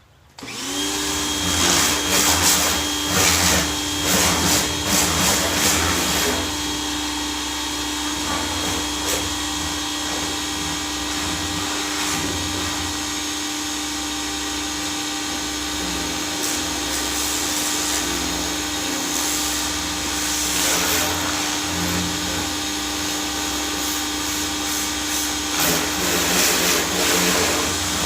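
Ryobi 1,600-PSI electric pressure washer (RY141612) starting up about half a second in and running steadily, its motor and pump humming under the hiss of the water spray.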